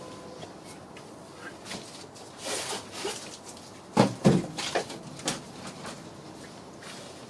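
Tools and loose engine-bay parts being handled: a brief rustle, then a handful of sharp knocks and clinks, the loudest about four seconds in.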